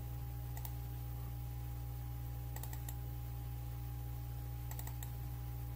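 Computer mouse button clicks while working through software menus and a file dialog: a single click, then two short clusters of quick clicks, over a steady low electrical hum.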